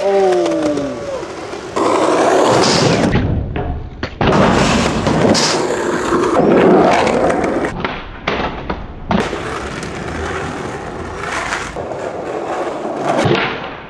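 Skateboard wheels rolling hard over concrete, with board clatter and scrapes, in several short stretches that change abruptly.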